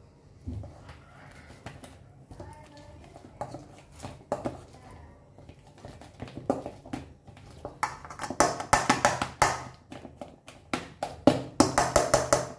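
Wire potato masher working boiled potatoes and eggs in a stainless steel bowl: soft squashing at first, then from about eight seconds in a fast run of metallic clinks as the masher strikes the steel bowl.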